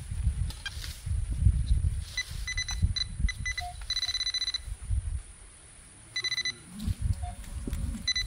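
Metal detector pinpointer beeping as it is worked through loose dirt: a run of quick beeps about two seconds in that merges into a steady tone, then shorter tones later on, the signal that metal is within reach. Hands scrape and rustle in the soil underneath.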